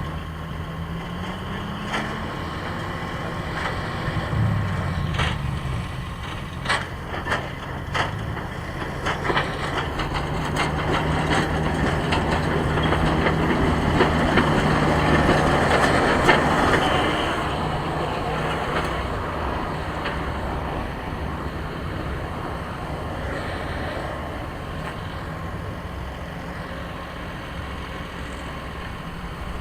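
Rail vehicle's engine running and rising in pitch as it pulls away, with a string of sharp cracks and crunches from the wheels on the track in the first third. The engine grows louder to a peak about halfway, then fades as it moves off.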